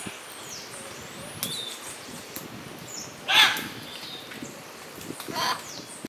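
Two harsh scarlet macaw squawks, about two seconds apart, the first the louder, over thin high chirps and whistles of smaller birds.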